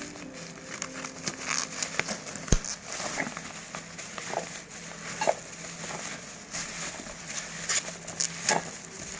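Packaging and parts of a headlight lamp kit being handled during unboxing: scattered crackles and clicks, with one sharp click about two and a half seconds in.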